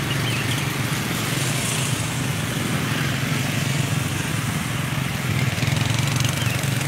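Steady low hum of motorcycle and truck engines running slowly in queued traffic.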